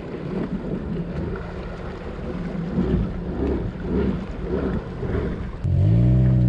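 Sea-Doo jet ski engine idling with a rough, pulsing sound and water churning as it noses onto its trailer. About two-thirds of the way in, a much louder, steady low engine hum suddenly takes over.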